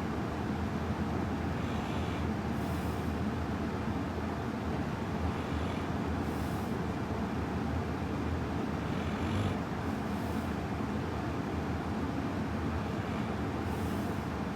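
Faint slow breathing of a sleeping person, one breath about every four seconds, under a steady low hum and hiss.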